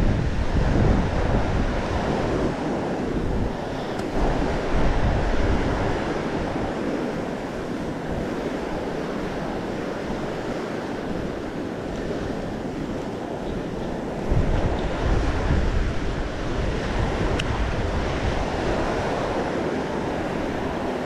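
Ocean surf washing in steadily, with wind buffeting the microphone in gusts, the strongest about four seconds in and again about fourteen seconds in.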